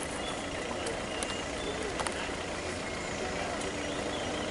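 A few faint crackles and clicks from a crumpled plastic water bottle being handled by a bonnet macaque, over steady outdoor background noise.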